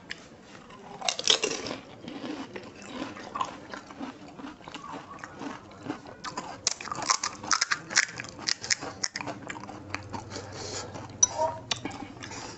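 Crisp fuchka (pani puri) shells, dipped in tamarind water, being bitten and chewed: a loud crunch about a second in, then a run of crackly crunches in the middle.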